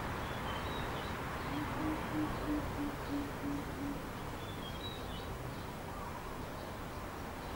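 Greater coucal calling: a run of about seven evenly spaced, deep hooting notes lasting a little over two seconds, starting about a second and a half in. Faint high chirps of small birds come in briefly before and after.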